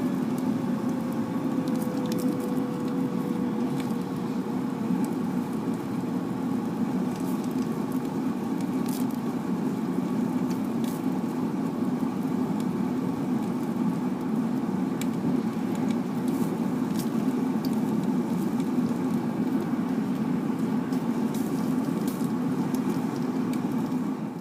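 Forced-air propane burner running steadily: a loud blower-and-flame noise with a faint whine that drops slightly in pitch over the first few seconds and then holds, and scattered crackles and sizzles throughout.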